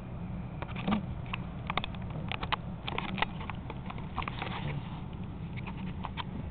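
A run of short, irregular clicks and taps, a few a second, over a steady low hum.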